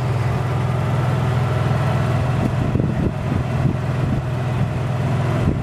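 Golf cart driving along a paved street: a steady low motor drone with road and wind noise, and a few light knocks from the cart over bumps.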